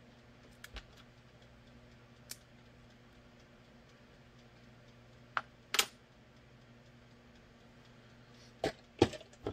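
Hands handling blue painter's tape and small parts on a workbench: a few scattered light clicks and taps, two sharper ones midway and a quick cluster near the end, over a faint steady hum.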